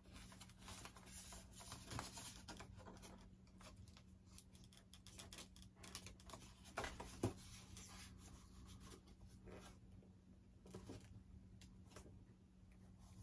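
Faint scratching and rubbing of a wire lead being worked through a channel in a foam model airframe, with small clicks and one sharp tap about seven seconds in, over a low steady hum.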